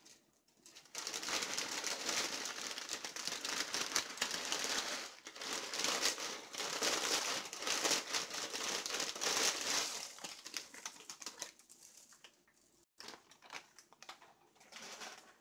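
Dry pancit canton noodles crackling and rustling as handfuls are pulled apart and dropped into a wok. The crackling is dense for several seconds, then thins to scattered crackles after about ten seconds.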